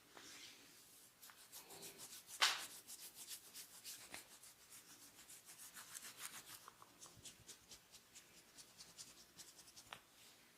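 Hands rubbing and scratching quickly over a person's hair and scalp during a head massage: a fast run of short, dry strokes, with one louder scrape about two and a half seconds in and sparser strokes near the end.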